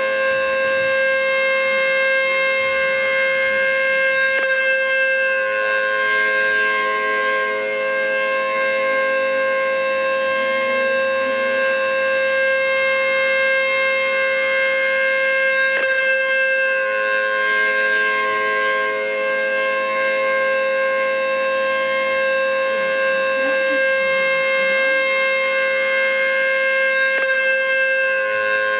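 Outdoor tornado warning siren sounding a steady alert, holding several pitches at once without rising or falling.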